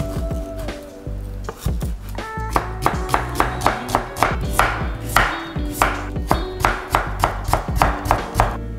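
A chef's knife cutting vegetables on a wooden cutting board: a few strokes through leafy greens, then a steady run of crisp strokes, about three or four a second, slicing onion and cutting carrot into thin strips.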